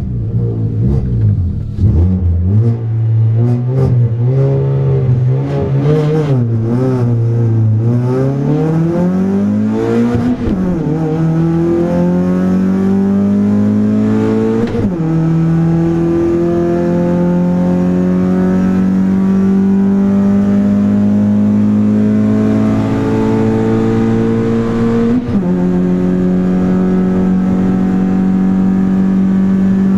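Citroën Saxo Cup race car's four-cylinder engine heard from inside the cockpit. It revs up and down unevenly through the launch off the start line, then pulls hard up through the gears, the note climbing between sudden upshift drops about a third of the way in, halfway through and near the end.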